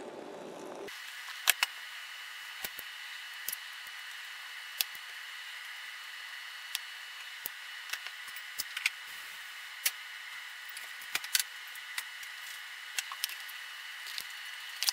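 Hot water poured from a kettle into a plastic bowl for about the first second, cut off suddenly. Then a faint steady hiss and hum with scattered light clicks and taps.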